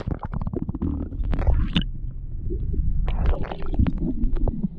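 Water heard through a camera held under the surface: a muffled low rumble with irregular clicks and knocks as the water moves around the camera.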